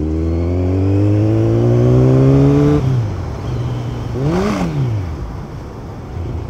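Kawasaki superbike's loud modified exhaust: the engine pulls up through the revs for nearly three seconds, the revs drop sharply at a gearchange, then a quick short rev up and down about four and a half seconds in, which the rider puts down to fourth gear sticking.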